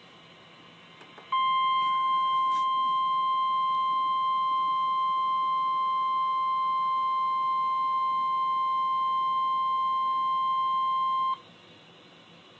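Emergency alert attention signal: a single steady tone of about 1050 Hz, the National Weather Service warning alarm tone. It comes on sharply about a second in, holds for about ten seconds and cuts off suddenly, signalling that a severe thunderstorm warning message follows.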